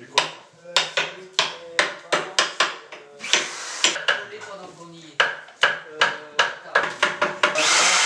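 Hammer blows on wood at about two to three a second, each with a short ring, during hands-on furniture repair, with a brief scraping a little after three seconds in. Near the end a loud steady rushing noise of a machine starts.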